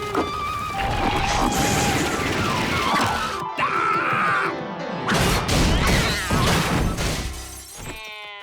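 Cartoon slapstick soundtrack: busy music with repeated crashes and bangs, fading near the end.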